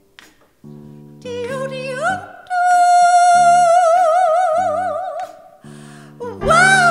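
A woman singing a long, high, wordless note with wide vibrato over strummed acoustic guitar chords, then a short note that swoops up and down near the end.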